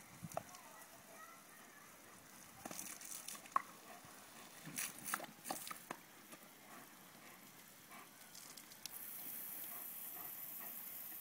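Spray from a Gardena lawn sprinkler's water jet spattering, with scattered splashes and snaps as a dog bites at the stream. About nine seconds in, a steady hiss of spray sets in.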